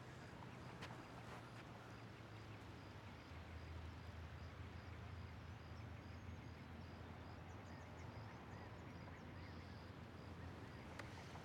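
Quiet outdoor ambience: a faint steady low hum under a light hiss, with a few faint, short, high bird chirps about two-thirds of the way through.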